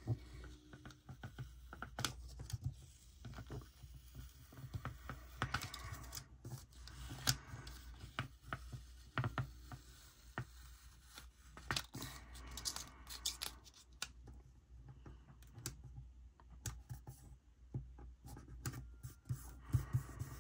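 Paper stickers being peeled up and pressed down on planner pages by hand: faint, irregular paper rustling and scratching with small clicks and taps.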